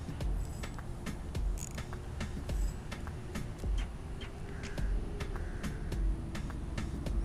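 Fishing reel being wound to retrieve a soft-plastic lure: quick, irregular ticking with dull low knocks about once a second.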